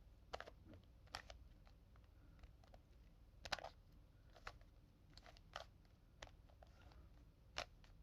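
Plastic Rubik's Cube layers being turned by hand, giving a dozen or so irregular short clicks and clacks with quiet between them, the loudest a little past the middle. The cube is stiff and hard to turn.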